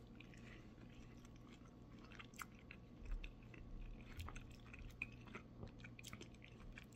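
A person chewing a mouthful of a grilled French-style tacos wrap, faint, with small irregular clicks of the mouth.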